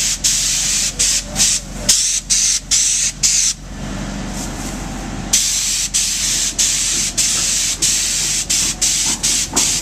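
Spray gun hissing as it sprays Enviro-Dri liquid-applied weather barrier onto wall sheathing. The hiss is broken by many short gaps, about two a second, and stops for nearly two seconds around the middle. A low steady drone runs underneath.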